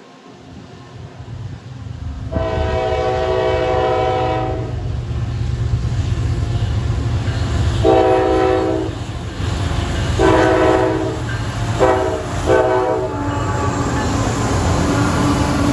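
Approaching train sounding its locomotive air horn: one long blast, then after a pause four shorter blasts, the last two very quick. Under the horn runs a steady rumble of the locomotive and wheels that builds over the first two seconds as the train nears.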